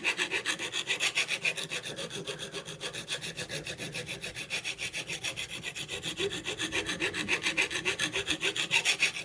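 A hand file rasping along the edge of a steel lawnmower blade in quick, even back-and-forth strokes, several a second, as the blade's leading edge is sharpened.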